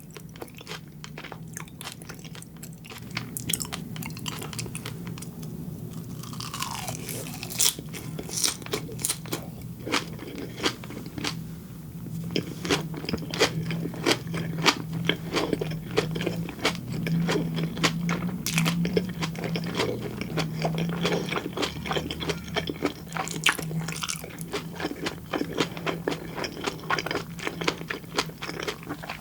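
Close-miked chewing of raw fish sashimi and flying fish roe: wet mouth sounds with dense, irregular small crunches and popping clicks, over a low steady hum.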